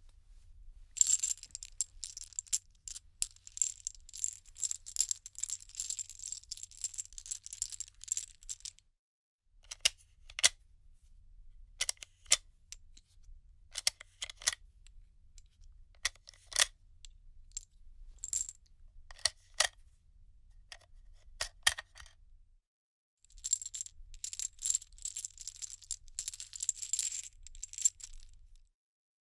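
Loose metal bullet cartridges handled and rattled together in the hand, with bright metallic clinks. A dense jingling rattle runs for several seconds, then single clinks come a second or so apart, then the dense rattling starts again.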